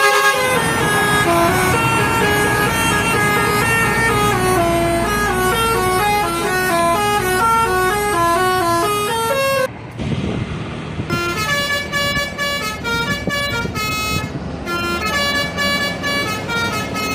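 Indonesian bus telolet horn playing a quick melody of stepped notes, which walk downward and then back up, with engine rumble beneath. About ten seconds in it cuts off abruptly, and after a moment of engine rumble a different telolet horn tune starts.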